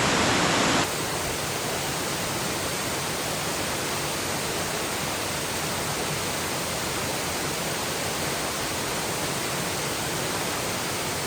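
Waterfall rushing as a loud, steady roar of water, with the level stepping down slightly about a second in.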